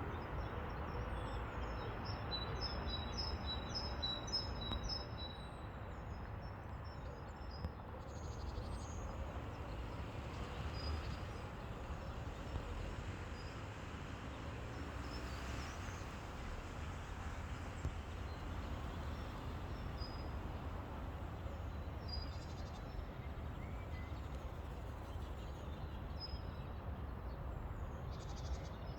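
Woodland ambience at dawn: a steady low rumble and hiss, with small birds chirping high over it, a quick run of chirps in the first few seconds, then scattered single calls.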